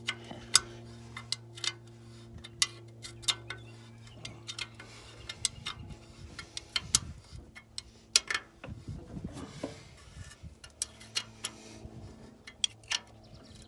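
Wrench working the bolts and fittings on a tractor's hydraulic remote valve: irregular sharp metallic clicks and ticks, one or two a second, over a faint steady hum.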